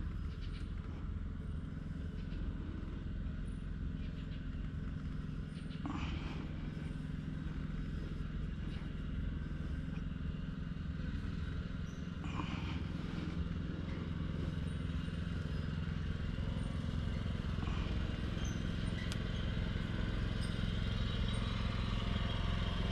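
A tubing cutter being turned around a copper pipe, giving a few soft clicks and scrapes as it works. Under it runs a steady low machine hum.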